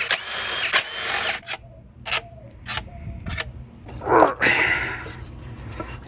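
Cordless power tool running, backing out the bolts that hold the ignition coil pack, and stopping about a second and a half in. It is followed by a few sharp clicks and rattles as the bolts and the coil pack are handled.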